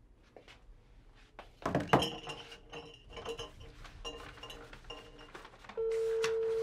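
A run of bright clinking, chiming strokes, then near the end a steady single telephone tone about a second long, the ring-back of a call being placed.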